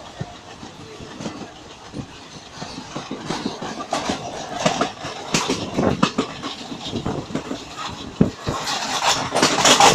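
Train running on the rails, heard from on board: a steady rumble with irregular knocks and rattles that grow louder and busier near the end.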